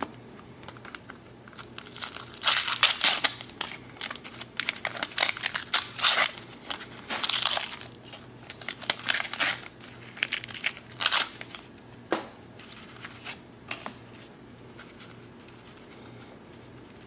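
Waxed-paper wrapper of a 1990 Donruss baseball card pack being torn open, with loud crinkling and tearing in repeated bursts that die away after about eleven seconds.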